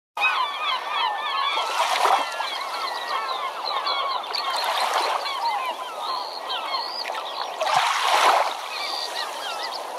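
A large flock of birds calling all at once, many overlapping short chirping and honking calls. A rushing noise swells three times, about every three seconds.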